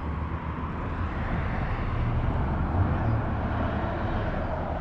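Steady traffic noise outdoors: a low rumble and road hiss that swell slightly about two seconds in, as a vehicle passes.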